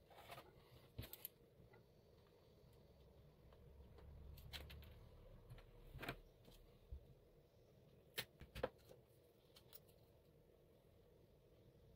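Faint handling noise: scattered light clicks and taps as a small card-and-wooden-stick model is picked up, turned and set down on a cutting mat, with two sharper clicks close together about eight seconds in.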